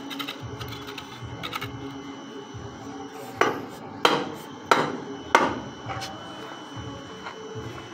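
A hammer striking steel four times, evenly spaced about two-thirds of a second apart, each blow with a short metallic ring, after a few light taps.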